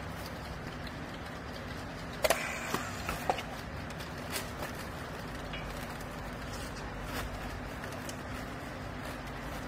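Rag baler's electric motor and hydraulic pump running with a steady hum, with a few sharp knocks between about two and three and a half seconds in.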